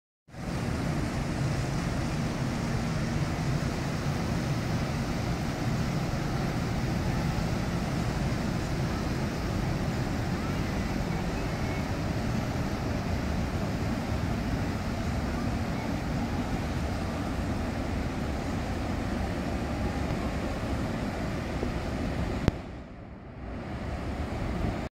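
Steady low rumble of the coal-burning steamship SS Badger passing close by, mixed with the wash of water and wind on the microphone. Near the end a click is followed by a brief drop in level before the rumble returns.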